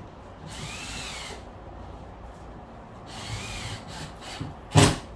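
A handheld power drill is run in two short bursts, its pitch winding up and back down each time. A single sharp knock, the loudest sound, comes near the end.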